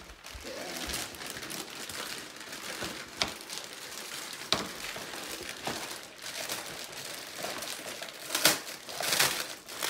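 Plastic packaging wrap crinkling and rustling as it is handled, with a couple of sharp clicks and two louder crinkles near the end.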